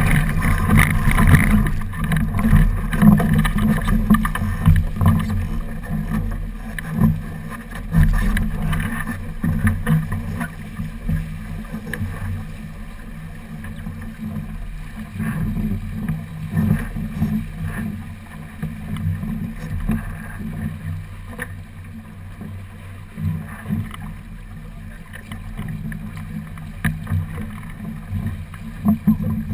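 Wind buffeting a deck-mounted camera and water rushing along a sailboat's hull under sail: an irregular, muffled, low rumble, louder for the first several seconds and then easing.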